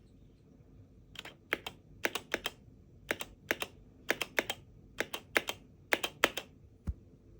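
Gaming keyboard keys clacking, struck one after another in quick pairs, about twenty clicks in all, ending in a dull thump.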